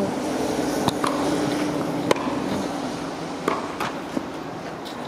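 Tennis rally: sharp pops of racket strings striking the ball, three main hits about a second and a quarter apart, followed by a couple of fainter knocks.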